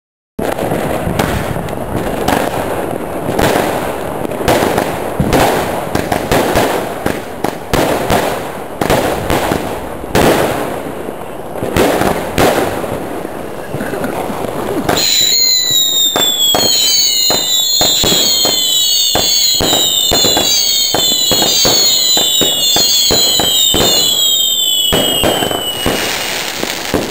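Marijn Vuurwerk 'Wil Wil Wel' firework cake firing: a rapid, continuous string of shots and crackling bursts for about fifteen seconds. After that come shots mixed with many overlapping whistles falling in pitch, which last until just before the end.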